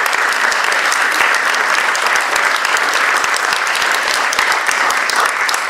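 Audience applauding: a steady round of clapping from a cinema crowd that fades out just after the end.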